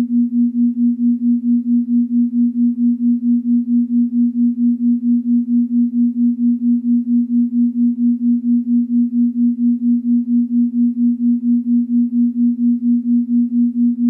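Electronic meditation tone: one low pure tone pulsing steadily at about three and a half beats a second.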